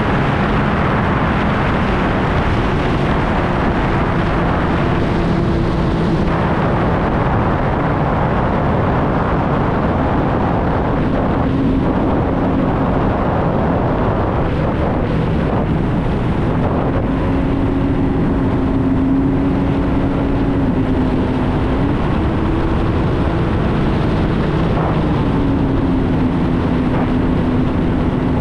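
Sea-Doo personal watercraft engine running at low cruising speed under a steady rush of noise, its note stepping up and down a few times as the throttle changes.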